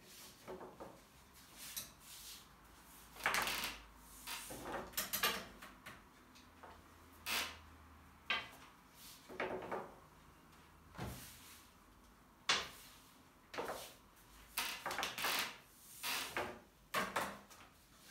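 Long thin wooden rolling pin (oklava) rolling and sliding over yufka dough on a glass tabletop, as the dough sheet is wrapped around the pin and rolled out under the palms. It comes as a dozen or more short, irregular rolling strokes, the sharpest about three seconds in and again near the middle.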